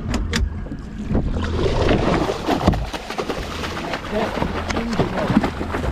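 Boat motor running steadily at low revs under rushing wind and water noise, with indistinct voices and a few clicks.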